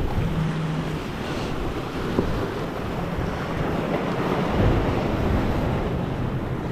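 Ocean surf washing against jetty boulders, with wind buffeting the microphone.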